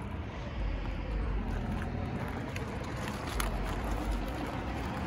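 Steady traffic rumble along a wide road, with a few faint knocks and scuffs from a phone being carried at a walk.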